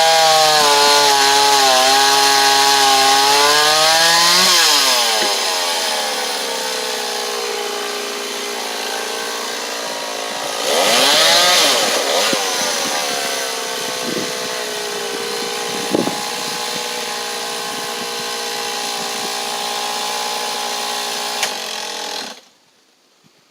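Two-stroke chainsaw revving high, then dropping in pitch as it bites into bois d'arc (Osage orange) hardwood and running steadily under load in the cut. It rises briefly in revs about halfway through and cuts off suddenly near the end.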